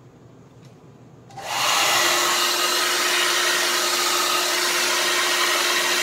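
Handheld hair dryer switched on about a second and a half in, then blowing steadily on its high-speed setting: a loud, even rush of air with a steady low hum underneath.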